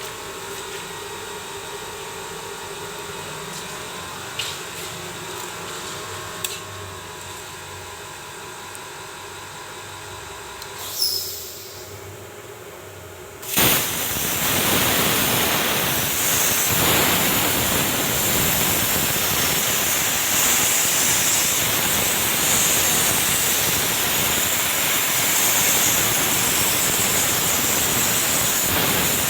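A steady machine hum with a few light clicks for about thirteen seconds, then a CNC plasma cutter's torch fires and cuts: a loud, steady hiss of the arc and air with a high whine on top, running to the end.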